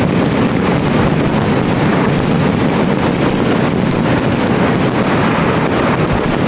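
Kerala temple fireworks (vedikettu) going off in a dense, unbroken barrage: bangs and crackling so close together that they merge into one steady, loud din.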